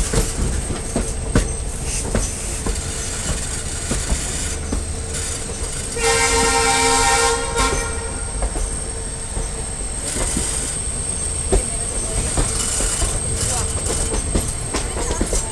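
Train running along the track, with a steady rumble and the wheels clicking over rail joints. About six seconds in, the train horn sounds one blast lasting about a second and a half.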